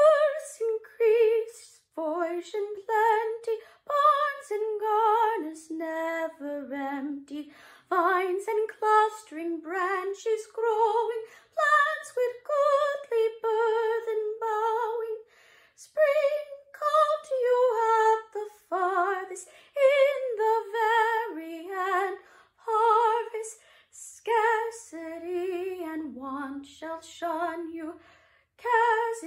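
A woman singing solo and unaccompanied, a slow melody with vibrato on the held notes and short pauses between phrases.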